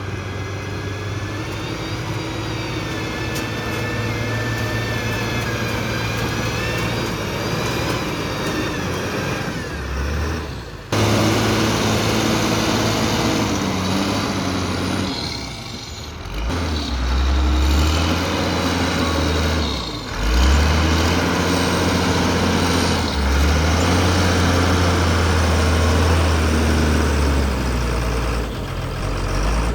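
Heavy diesel machinery working: the engines of a Doosan DX220 excavator and Hyundai dump trucks running under changing load, their pitch rising and falling. The sound changes abruptly about a third of the way in, after which the deep engine note swells and eases several times.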